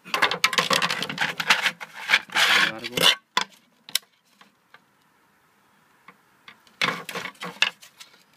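Plastic DJI Phantom top shell being bent back and forth by hand, creaking and crackling as it flexes, for about three seconds. Then a couple of sharp clicks and, near the end, a second short burst of handling noise as the stiffer carbon-fibre shell is picked up.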